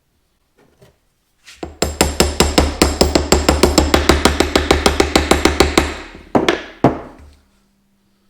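Hammer tapping rapidly and evenly on a socket, about seven blows a second for four seconds, driving a seal back into its bore, then two separate heavier blows.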